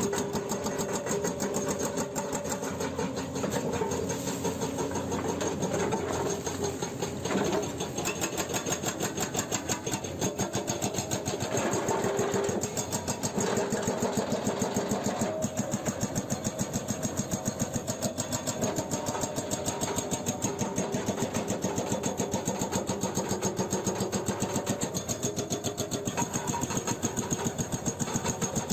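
Excavator-mounted hydraulic breaker hammering rock in a rapid, even string of blows, with the Hyundai 210LC-7 excavator's engine running under load.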